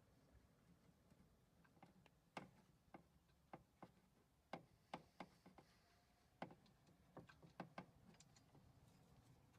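Faint metallic clicks and taps at irregular intervals, some in quick pairs, from hand tools working the rear brake caliper bolt loose.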